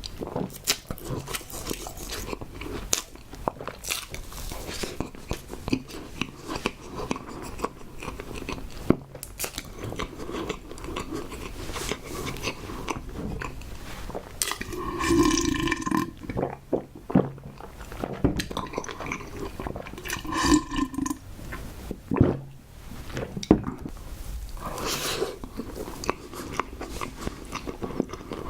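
A person chewing tapioca pearls and fresh-cream bread close to the microphone, with wet mouth smacks and small clicks throughout. Twice, about halfway through, there is a short throaty sound like a swallow or a low hum.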